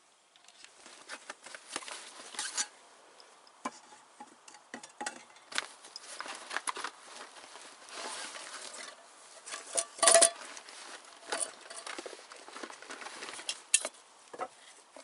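Rustling, clicking and light clattering as camp cooking gear is handled to boil water, with one louder ringing metallic clank about ten seconds in.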